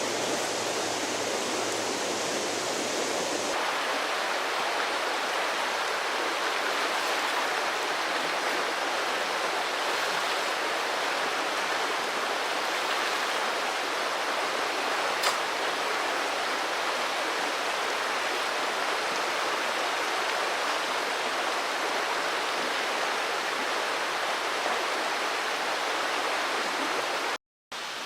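Mountain stream running: a steady rush of flowing water that holds an even level. There is one light click about halfway through.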